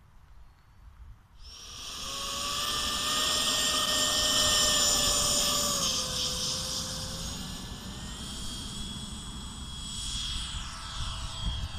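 Yak-130 model jet's engine whining at high power, coming in suddenly about a second and a half in. Its pitch drops slightly about halfway, and it fades as the jet moves away.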